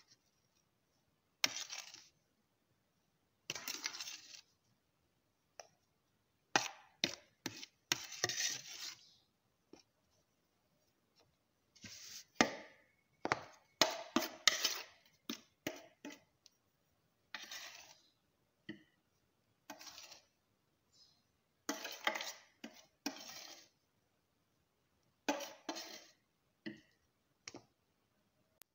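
Plastic jars and a plastic bowl being handled and set down on a kitchen counter: irregular knocks, clinks and scrapes in short clusters, with silent gaps between them.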